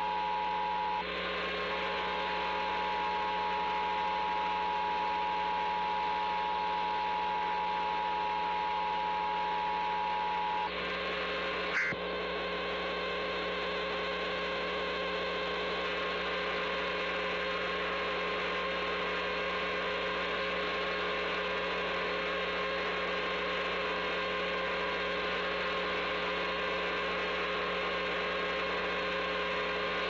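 Emergency Alert System two-tone attention signal (853 and 960 Hz) sounding over a loud, distorted buzz, with a short dropout about a second in. The tone cuts off about eleven seconds in, followed by a click, and a steady buzzing hum and hiss carries on.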